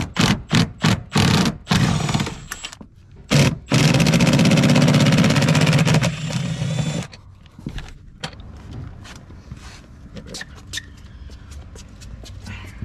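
Seat-mounting bolts being undone with a deep socket: a run of sharp clicks about four a second, then a power tool runs with a fast rattle for about three seconds, followed by light scattered ticks.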